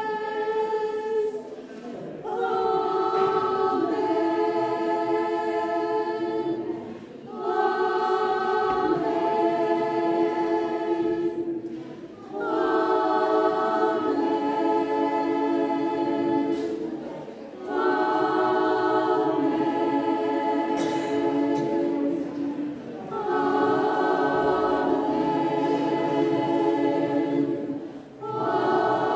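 Mixed choir of men and women singing in harmony in a church. Held chords come in phrases about five seconds long, with a brief drop at each breath between phrases.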